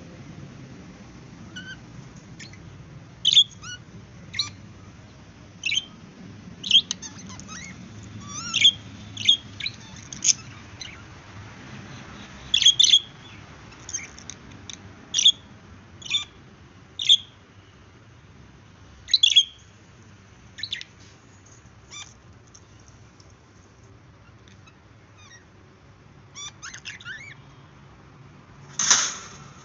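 Pet budgerigars chirping: short, sharp chirps every second or so, thinning out past the middle, then a louder, longer call near the end.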